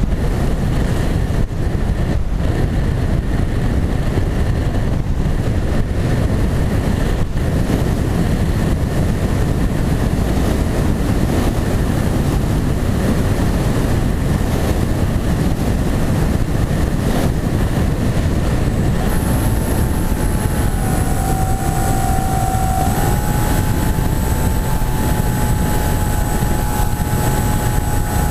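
Wind rushing over the onboard camera of a foam flying-wing model aircraft in flight, with the motor and propeller whining underneath. About two-thirds of the way through, a higher whine comes in, dips in pitch for a moment and then holds steady.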